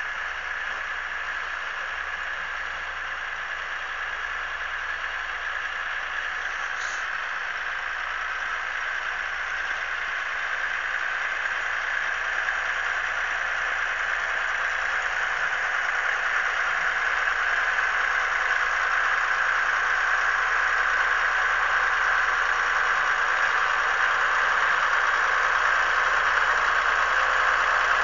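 A vehicle running steadily, a continuous rushing engine noise that grows gradually louder throughout, as if drawing nearer.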